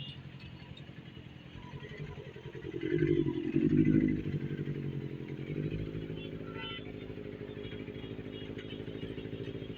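Benelli 600i inline-four motorcycle with an aftermarket exhaust idling, blipped once about three seconds in so that the engine note swells, then settling back to a steady idle.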